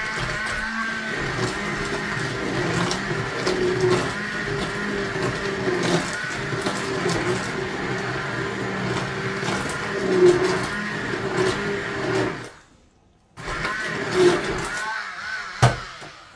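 Electric blender motor running, its pitch wavering and dipping as it works, as when puréeing soup. It cuts out about twelve seconds in, starts again a second later, and is switched off near the end.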